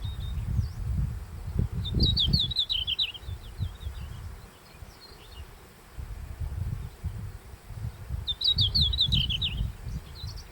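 Red-flanked bluetail singing: two short phrases of quick, clear, falling notes, the first about two seconds in and the second about eight seconds in, a few seconds apart. An irregular low rumble runs underneath.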